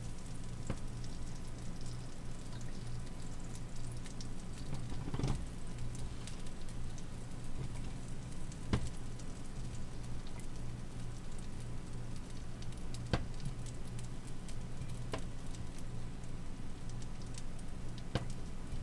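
Butter sizzling and crackling in a hot cast-iron pan, with a few sharp pops scattered through it, over a steady low hum.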